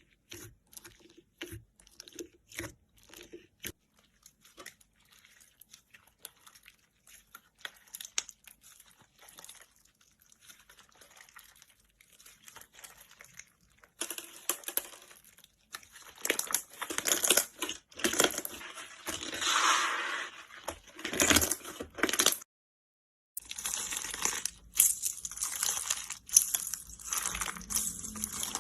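Slime being handled by hand, making sticky clicks, crackles and small pops. It is quiet and sparse at first, then louder and denser from about halfway, broken once by a moment of dead silence.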